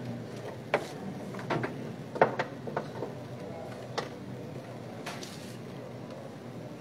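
A few light knocks and clicks, then a short rustle about five seconds in, over a faint steady low room hum: papers and objects being handled at a table near the microphones.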